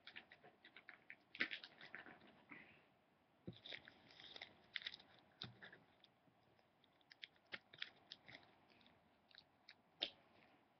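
Faint crinkling and rustling of a small clear plastic bag being handled and packed with craft beads, with scattered short crackles and clicks throughout.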